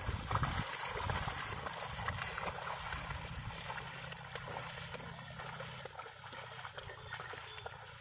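Steady soft sloshing and splashing of a pair of bullocks' hooves and a dragged wooden plank working through a flooded, muddy paddy field.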